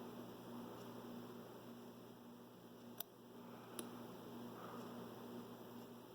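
Faint steady hiss and hum with two light metallic clicks, about three and four seconds in, from a pick working inside a Yardeni dimple lock's keyway.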